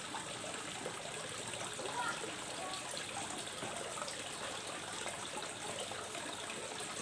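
Steady background hiss with no distinct event, and a faint short sound about two seconds in.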